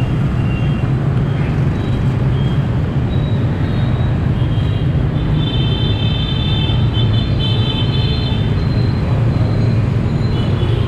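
Steady roadside din of motorbike traffic, with a constant low hum throughout and a thin high whine for a few seconds in the middle.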